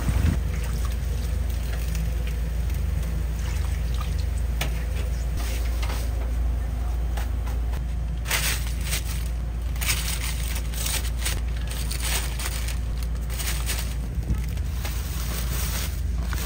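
Cheese-filled pork loin roll cutlets deep-frying, the oil sizzling steadily, with crackling that grows thicker from about halfway through, over a steady low hum.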